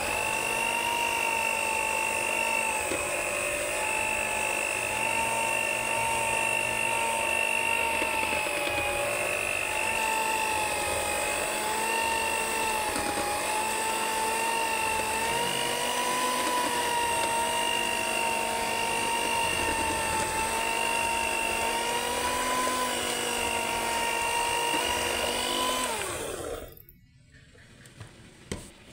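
Electric hand mixer motor running steadily, its beaters whipping buttercream in a plastic bowl: a loud whine whose pitch wavers slightly as the load changes. About 26 seconds in it is switched off and winds down, followed by a couple of light knocks.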